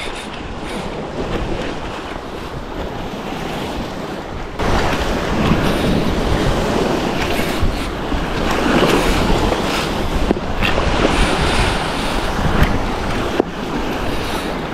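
Ocean surf washing with wind buffeting the microphone. It gets louder a little over four seconds in, and a few small knocks sound over it.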